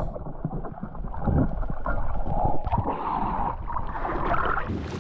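Muffled water sounds heard by a camera held underwater: a dull, rushing gurgle with no high tones. Near the end the camera comes up through the surface, and brighter splashing and open air sound take over.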